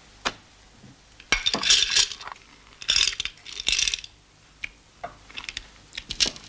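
A bunch of metal keys jingling and clinking in three short bouts, with a few light taps or footsteps near the end.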